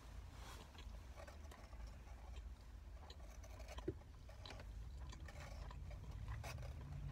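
A person chewing a mouthful of roast beef sandwich with the mouth close to the microphone: faint wet clicks and smacks, with one sharper click about four seconds in.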